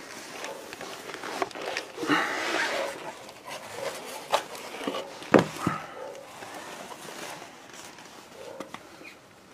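Handling noises in a small room: scattered rustles and light knocks, with one sharp knock about five seconds in.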